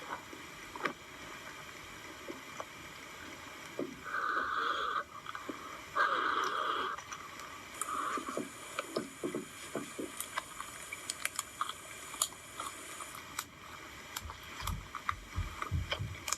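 Hands squishing and stretching slime, making many small sticky clicks and pops. A steady high-pitched sound comes in twice, each for about a second, around four and six seconds in.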